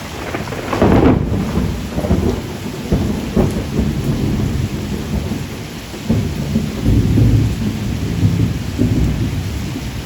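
Steady rain hiss with thunder rolling low beneath it, swelling about a second in and again around seven seconds.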